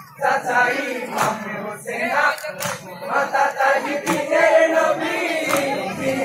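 A group of men chanting and singing together, a Bengali Karbala lament, with a few sharp knocks now and then.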